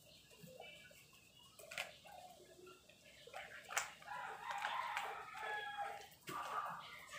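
A rooster crowing once, a call of about two seconds starting some four seconds in. A few sharp clicks come before and after it.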